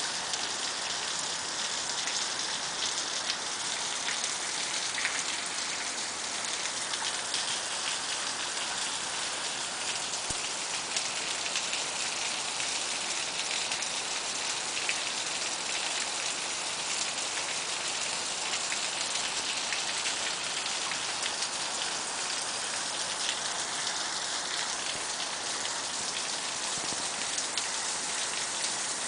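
Steady rain falling, an even hiss with many fine drop ticks.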